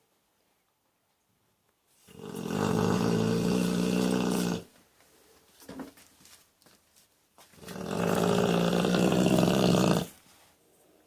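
A dog fast asleep, snoring: two long snores, each about two and a half seconds, about five seconds apart.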